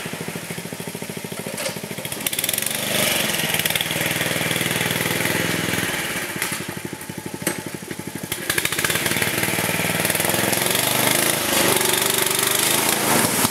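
Riding lawn mower's Briggs & Stratton engine running under load in the mud. It drops twice to a slow, pulsing lope, at the start and again around seven seconds in, and picks back up to higher, louder revs in between and to the end.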